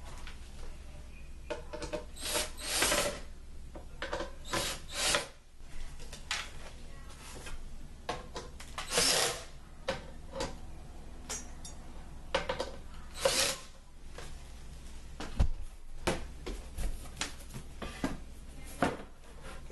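Flat-pack drawer panels being handled and fitted together by hand: irregular scrapes and rubs of board against board, with light knocks.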